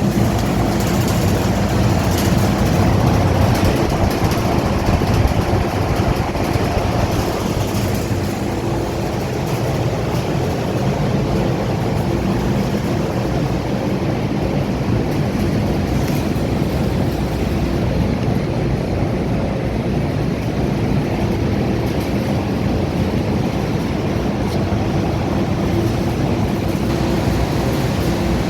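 Large ventilation fans or air-conditioning units running: a steady rush of air over a low mechanical hum, unchanging throughout.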